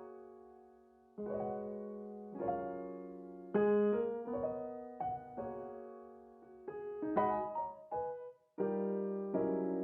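Background piano music: slow notes and chords struck one after another and left to ring out, with a short break just before the last second or so.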